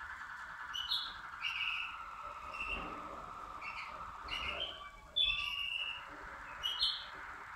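Malinois (Waterslager) song canary singing: a low rolling trill that runs on steadily, with short, higher notes breaking in over it again and again.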